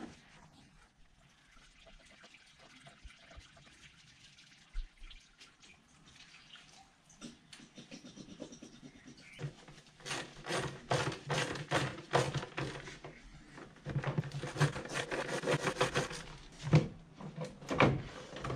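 Socket ratchet clicking in quick runs as bolts are turned out in the engine bay, starting faintly about seven seconds in and going dense for the last several seconds, with a couple of louder tool knocks near the end.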